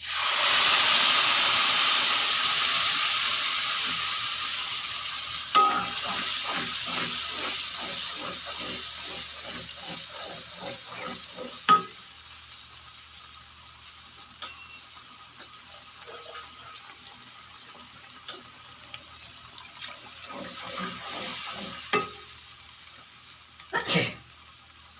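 Ground chilli-and-peanut spice paste sizzling loudly in hot oil in a pan, the sizzle slowly dying down as it cooks. From about five seconds in, a spatula stirs it in quick regular strokes for several seconds, and a utensil knocks sharply on the pan a few times.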